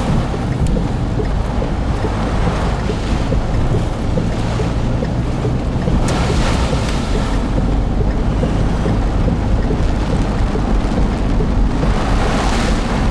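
Storm wind buffeting a moving car, heard from inside the cabin over a steady low road rumble, with gusts swelling about halfway through and again near the end.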